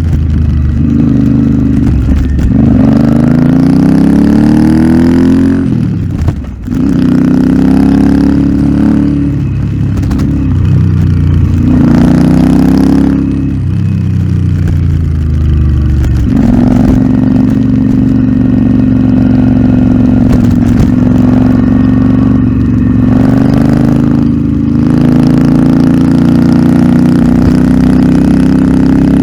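Royal Enfield Interceptor 650's parallel-twin engine through a Nuke aftermarket exhaust. The revs climb and then drop several times in the first half, once nearly cutting out about six seconds in. The engine then holds a steady note for the second half.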